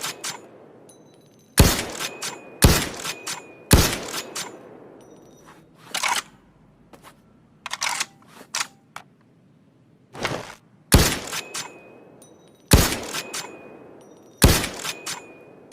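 Winchester Model 70 bolt-action rifle sound effect: a run of loud, sharp reports, each dying away over about a second, with a faint ringing after several of them. Three come about a second apart at the start, smaller metallic clicks and clacks follow in the middle, and four more reports come near the end.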